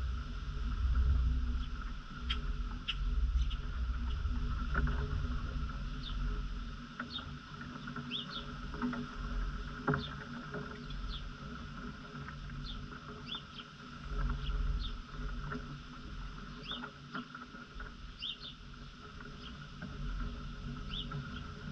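Squirrel eating seeds close to the microphone, with small sharp crunching clicks now and then, over a low uneven rumble. Short high bird chirps come again and again in the background.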